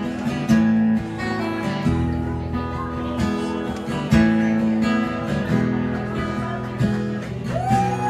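Acoustic guitar strumming slow chords in a live band's song intro, the chords changing about once a second. Near the end a single note slides up, holds and falls back.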